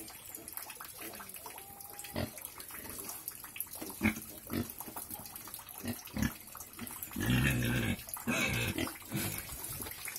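Pig snuffling and grunting in short bursts as it noses about, with a longer, louder grunt about seven seconds in and a shorter one just after.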